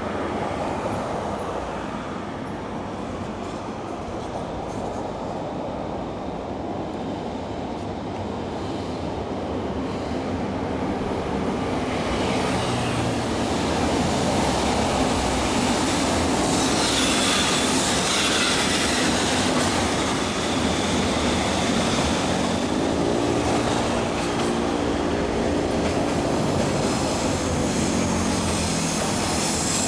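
Freight train rolling past behind an EF65 electric locomotive, steel wheels running on the rails with some wheel squeal. It gets louder about twelve seconds in, and a steady squeal comes in near the end.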